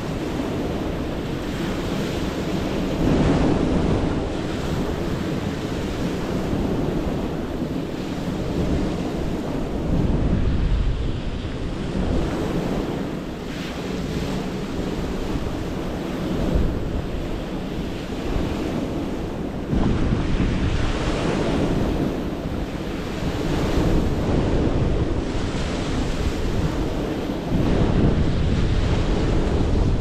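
Small ocean waves breaking and washing up a stony beach, swelling and easing every few seconds, with wind blowing across the microphone.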